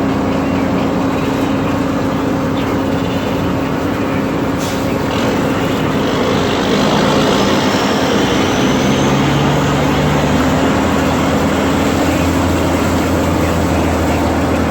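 Heavy farm vehicle engine running steadily with a continuous mechanical hum; deeper tones join about seven seconds in.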